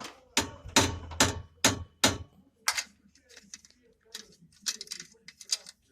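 A run of sharp clunks and clicks, about two a second for the first two seconds, then fainter irregular clicks: a car's driveline being rocked or checked by hand for play at the universal joint, suspected as the source of a knock.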